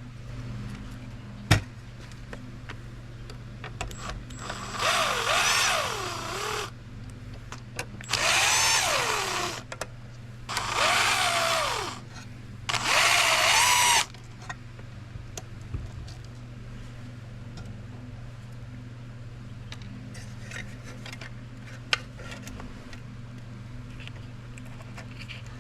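Cordless drill-driver run in four short bursts of one to two seconds, its motor pitch rising and falling with the trigger, backing screws out of a plastic gauge-cluster housing.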